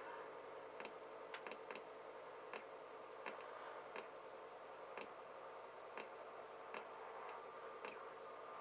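Faint, irregular clicks, roughly one a second, over a steady low hiss and hum.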